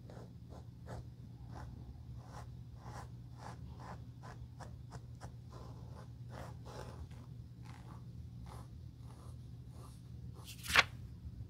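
Small foam sponge dabbed and rubbed along the edge of a leather slipper's sole: soft, faint scrubbing strokes, two or three a second. A single sharp click near the end.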